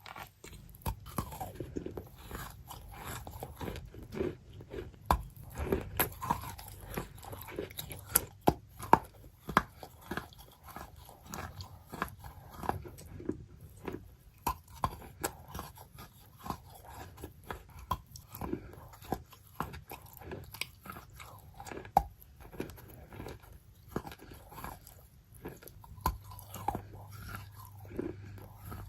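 Close-miked crunching of wet, soft chalk: an unbroken run of sharp crunches and softer crackles, several a second, with a few louder snaps.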